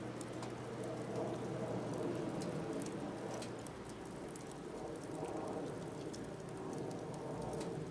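Firewood burning in a DIY secondary-combustion fire pit, crackling with scattered sharp pops over a steady low rush.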